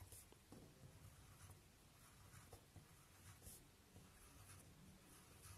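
Faint scratching of a pen on paper in short, repeated strokes as small circles are drawn.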